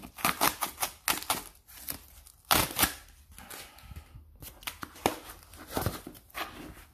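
Cardboard shipping box being torn open and handled: a quick run of short crackles, scrapes and knocks of cardboard, loudest about two and a half seconds in.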